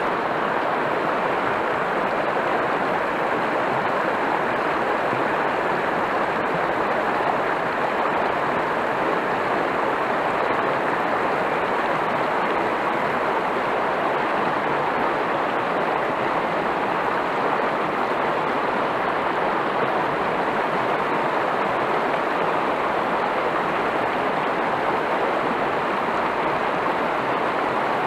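River water rushing steadily over a shallow rapid close by, a constant even wash of noise.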